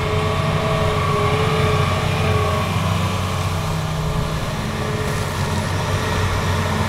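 Hitachi Zaxis 350 excavator's diesel engine running steadily under load as the machine swings and works its boom and bucket, a low drone with a faint higher whine in the first half.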